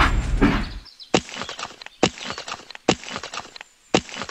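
A battery toy steam train's sound fades out within the first second. It is followed by a run of sharp, irregular clacks of stones knocking together as rocks are piled onto the toy track.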